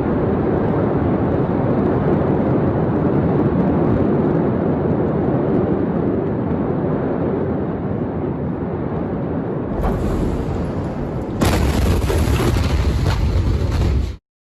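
Loud, continuous rumbling noise of the port warehouse fire and explosion, where fireworks were stored beside ammonium nitrate. About ten seconds in the sound changes. A second and a half later it grows louder and sharper with crackling, then cuts off suddenly.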